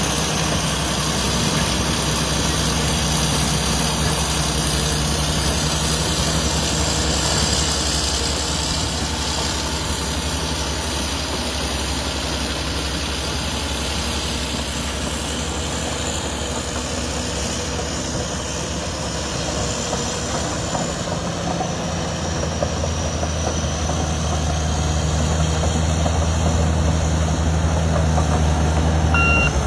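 Backhoe loader's diesel engine running steadily, its low note growing louder about two-thirds of the way through. A reversing alarm starts beeping at the very end.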